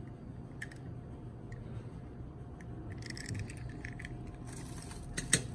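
A toy car being handled and set down on an aluminium-foil-covered table: a short crinkly rustle around the middle and a sharp tap near the end, over a faint steady hum.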